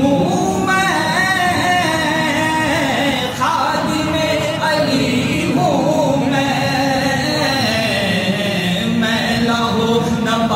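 A man singing an Urdu naat (devotional poem in praise of the Prophet) solo, without instruments, in long drawn-out melodic lines that slide and ornament between notes.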